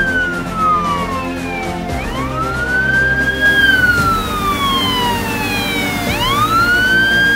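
Fire-rescue tender's siren wailing: a tone that sweeps up quickly and slides slowly down, repeating about every four seconds, with background music underneath.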